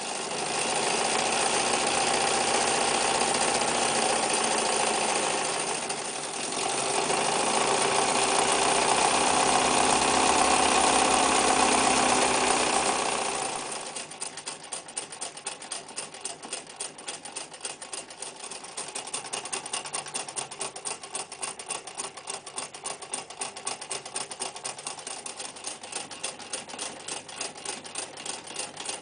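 Necchi Lycia electric sewing machine running fast and steady, dipping briefly about six seconds in. About halfway through it drops to a slower, quieter pace, each stitch stroke heard as a rapid, even ticking.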